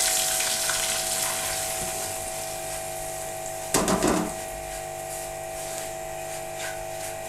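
Semolina roasting in oil in an aluminium pot, stirred with a silicone spatula: a light sizzle that fades over the first couple of seconds, with the soft scrape of stirring. A brief louder noise about four seconds in, over a steady low hum.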